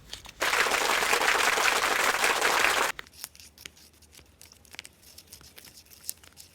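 A loud, even hiss for about two and a half seconds that starts and stops abruptly, then a spoon clicking and scraping lightly in a small container as a toothpaste and salt mixture is stirred.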